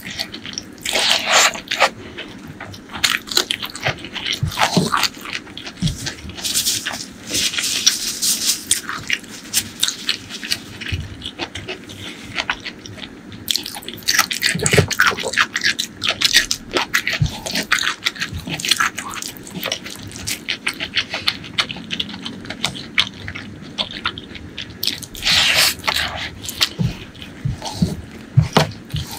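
Close-up eating sounds: a bare hand scrunching and scooping a pile of dry fried strands and rice on a wooden board, crackling in clusters, with crunchy chewing between handfuls.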